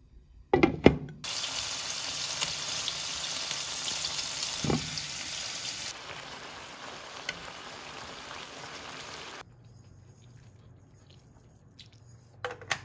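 Pork and soybean sprouts in chili-paste sauce sizzling as they are stir-fried in a wok, after a brief clatter of the utensils at the start. The sizzle drops about halfway through and stops a few seconds later, leaving only a few light clicks near the end.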